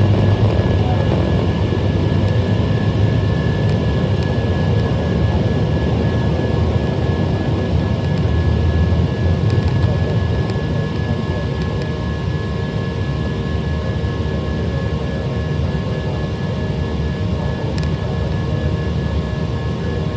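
Jet airliner's engines at takeoff power heard from inside the cabin: a steady, loud rush with a thin high whine over it. The low rumble is strongest at first, while the plane is still on the runway, and eases a little about halfway through, once it is airborne and climbing.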